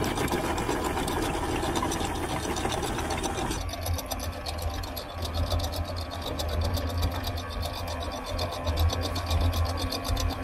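Electric anchor windlass hauling in the anchor chain: the motor hums steadily, and the links click fast and evenly as they run over the gypsy.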